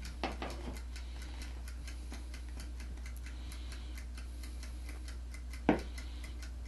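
Wind-up IKEA kitchen timer's clockwork ticking in a rapid, even series, over a low steady hum. There is a small knock just after the start and a sharper one near the end.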